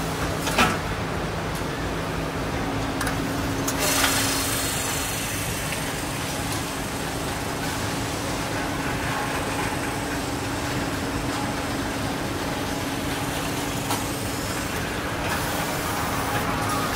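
Steady din of automated quilt-making production machinery running in a factory hall, a continuous hum under an even noise. A sharp knock comes just under a second in, and a short burst of hiss about four seconds in.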